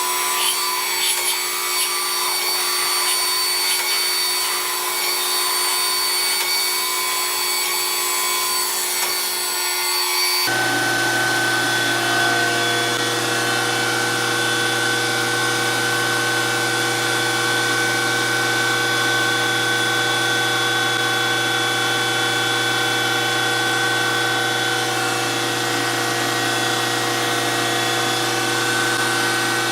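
DoAll 14-inch surface grinder running with a steady, many-toned machine whine. About ten seconds in the sound changes suddenly, as a deeper hum and extra steady tones join in and hold.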